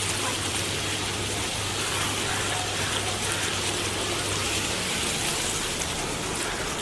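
Chicken masala sizzling and bubbling in a pan, a steady hiss with a little water just added to it.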